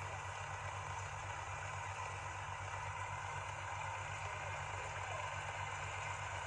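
A motor engine idling steadily, a low even hum with a fast fine pulse, under a constant hiss.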